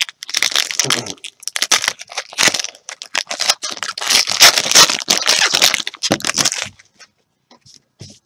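Wrapper of a 2014 Totally Certified football card pack being torn open and crinkled by hand: a run of loud crackling rips that stops about six and a half seconds in, followed by a few faint ticks.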